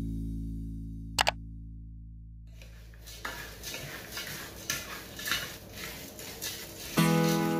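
A spoon stirring a dry, crunchy mix of cornflakes, flattened rice and peanuts in a nonstick pan: irregular rustling and scraping strokes. Before it, a sustained organ chord fades out and a quick double click sounds; acoustic guitar music comes in near the end.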